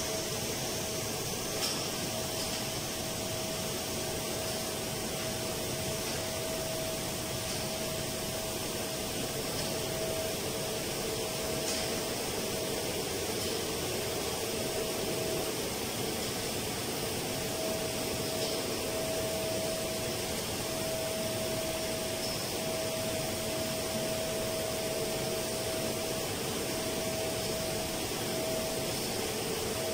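Steady fan-like machinery hum of a plant room, with a faint steady whine that drops out briefly now and then.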